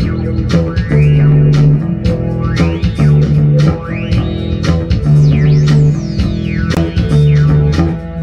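Instrumental funk: an electric bass guitar plays a repeating low riff under a steady drum beat, while keyboard synthesizer lines glide up and down in pitch.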